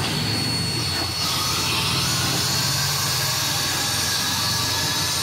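Steam locomotive 1702 venting steam from the top of its boiler, a loud steady hiss that swells about a second in, over a steady low hum.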